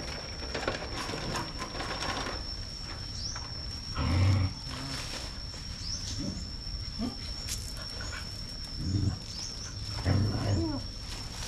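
Dog giving three short, low vocal sounds, about 4, 9 and 10 seconds in, over a steady high-pitched tone with small chirps.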